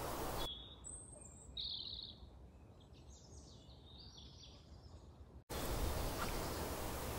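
Small woodland birds singing: a few short, high chirping phrases over a quiet background. Before and after them there is a steady outdoor hiss, which returns suddenly about five and a half seconds in.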